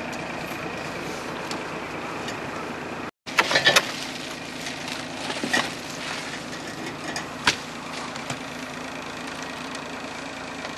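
An engine idling steadily, with a quick cluster of loud knocks and clatter about three seconds in and a few single sharp knocks later.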